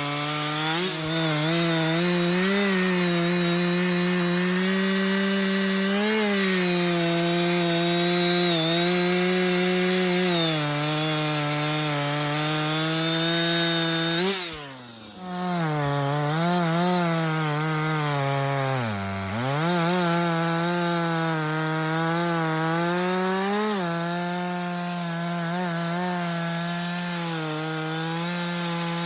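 Two-stroke Husqvarna chainsaw running at full throttle while cutting through sycamore wood, its pitch sagging and recovering as the chain bites. About halfway through it briefly drops off and comes back, and it bogs down sharply once more a few seconds later.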